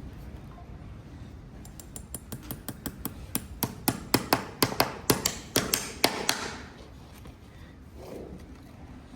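Farrier's hammer driving a horseshoe nail: a quick run of about twenty sharp metallic taps, light at first and growing harder, then stopping.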